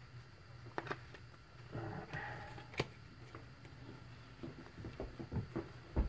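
Quiet handling of trading cards and a foil pack: a few sharp clicks, a short soft rustle and light taps near the end.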